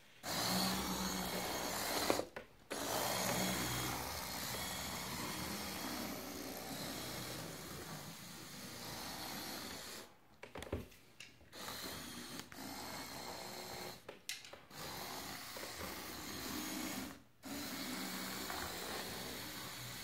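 Small electric motors of a remote-controlled LEGO Technic tracked skid steer whirring as it drives, stopping and starting again several times with brief pauses.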